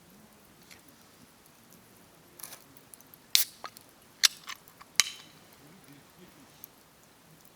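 Burning firewood in a campfire crackling, with a handful of sharp pops bunched near the middle, three of them loud.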